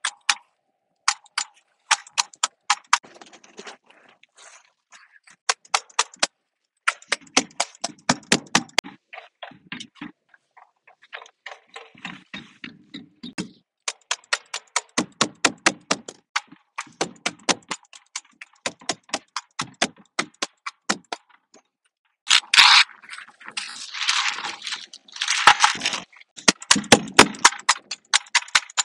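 Pneumatic roofing nailer firing rapidly into asphalt shingles, runs of sharp clacks at about four a second with short pauses between rows. Near the end come bursts of rustling noise.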